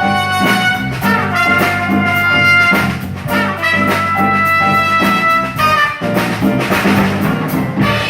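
Trumpet playing a melody of held notes over an accompaniment with bass and drums.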